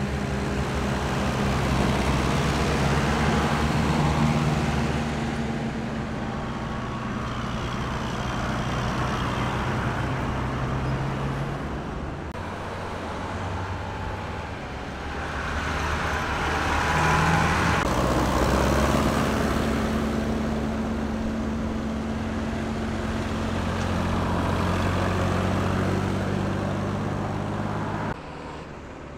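Tractor engines running as a line of tractors drives by on the road, the sound swelling and fading as each one passes. The sound drops suddenly near the end.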